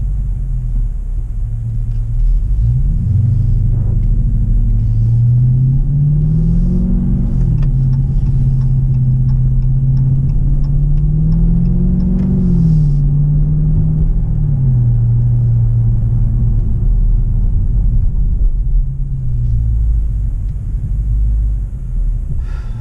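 2018 Dodge Charger R/T Scat Pack's 6.4-litre 392 HEMI V8, heard from inside the cabin, pulling under acceleration. The revs climb and drop back twice as it shifts up, then step down and settle into a steady low drone.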